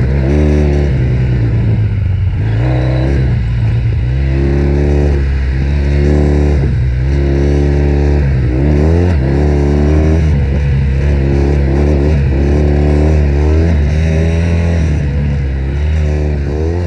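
2005 Triumph Bonneville's parallel-twin engine through a Predator Pro aftermarket exhaust, revving hard off-road. The throttle opens and closes again and again, and the pitch climbs and drops back about once a second.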